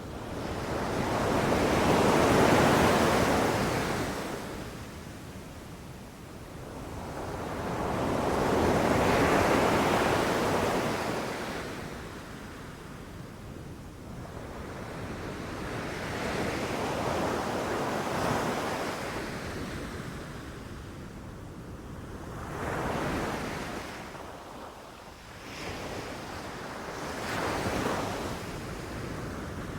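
Ocean waves breaking and washing up on a beach, in slow surges of surf about every six or seven seconds, the first two the loudest.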